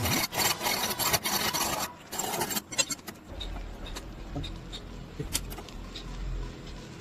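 Quick back-and-forth rasping strokes of hand scraping or filing for about three seconds, then a steady low hum with a few faint ticks.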